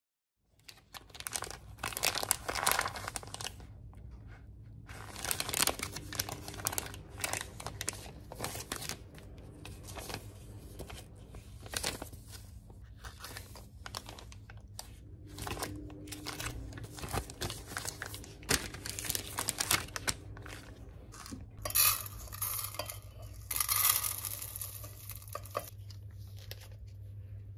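Foil sauce sachets and meal-kit packaging crinkling and rustling in the hands in irregular bursts, with a couple of sharper tearing sounds a few seconds before the end as a pack is torn open.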